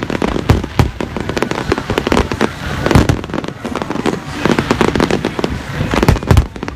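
Fireworks going off in quick succession: an unbroken crackle of bangs, several a second, with louder booms about three seconds in and again near the end.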